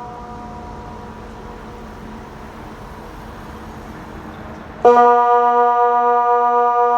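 Kockum Sonics DELTA 6 siren sounding the Swiss water alarm, a long steady low tone. For the first five seconds only a fainter steady tone from a more distant DELTA 6 is heard, then the near siren starts abruptly and much louder, beginning one of the twelve 20-second tones.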